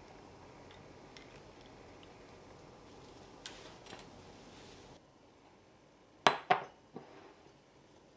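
A glass measuring cup clinks sharply twice, a little past the middle, then once more lightly, each knock ringing briefly.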